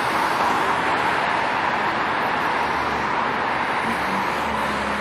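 City street traffic: cars passing close by with a steady rush of tyre and engine noise that eases slightly over the few seconds, and a low engine hum coming in near the end.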